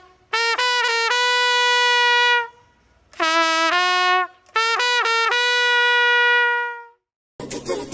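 Solo trumpet playing a slow melody in three phrases, each a quick run of notes that settles on a long held note; the last held note fades out about seven seconds in. A different piece of music starts just before the end.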